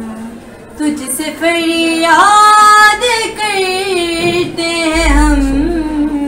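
A girl singing an Urdu hamd, a devotional hymn praising God, solo and unaccompanied, holding long notes with a wavering pitch. A low rumble sits under the last second or so.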